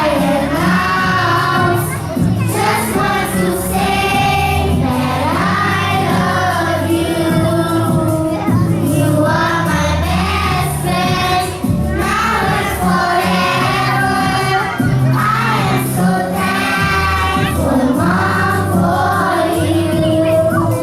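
A group of young children singing a song together in chorus over recorded musical accompaniment with a steady bass line.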